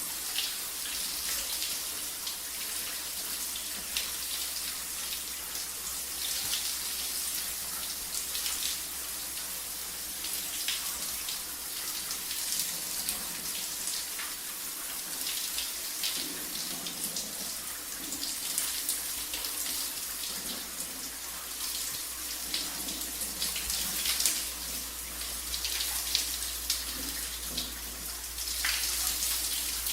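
Shower running: a steady hiss of water spraying and splashing, with scattered brief spatters.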